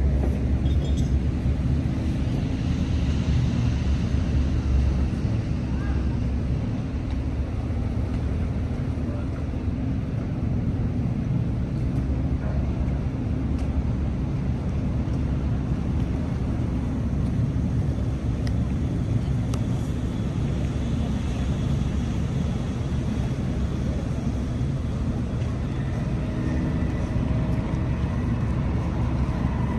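Marine diesel idling at the berth, a steady low drone that holds at one pitch.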